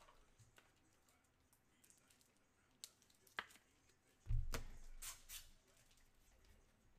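Hands handling a stack of football trading cards just pulled from a pack: a few faint clicks, a soft thump about four seconds in, then brief card rustling.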